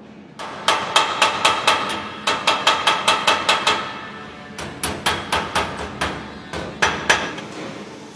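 Hand hammer striking a sheet-metal car body panel, each blow with a short metallic ring. The blows come in quick runs of about four a second: a run of about a dozen, a brief pause, a run of about seven, then two more near the end.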